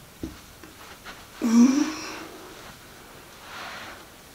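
A person's short vocal sound, one brief pitched utterance about a second and a half in, with a soft knock just after the start and a breathy hiss near the end.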